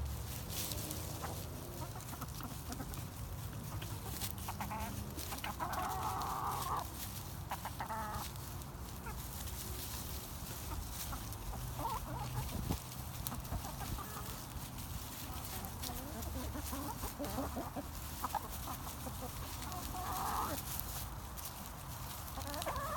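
A flock of backyard chickens clucking as they feed. A few louder calls stand out: the longest comes about six seconds in, a shorter one follows soon after, and another comes near the end.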